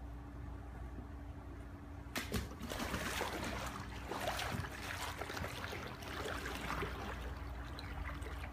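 Water splashing and sloshing as a person steps into a swimming pool and wades through it, starting suddenly about two seconds in, over a steady low hum.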